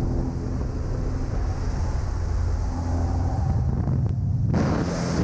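A small high-wing jump plane's piston engine drones steadily, with air rushing in through the open door. About four and a half seconds in, a loud rush of wind on the microphone lasts just under a second as the skydiver climbs out into the airstream.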